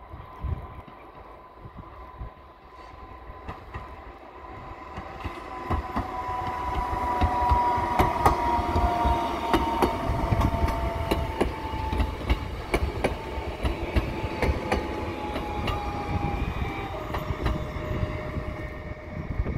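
PESA Elf electric multiple unit EN76-041 passing: wheels clicking over rail joints over a low rumble, growing louder about six seconds in. An electric whine from the unit slowly falls in pitch.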